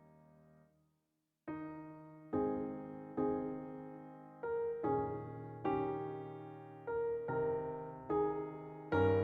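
Background music on a keyboard: a held chord fades out, there is a short silence about a second in, and then slow chords are struck roughly once a second, each ringing and fading.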